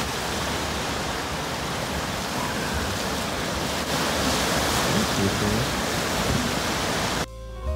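Steady rushing noise of ocean surf with wind buffeting the microphone. Near the end it cuts off suddenly and music with drums begins.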